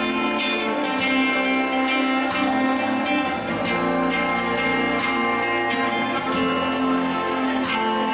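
Worship band music with guitar and a steady beat.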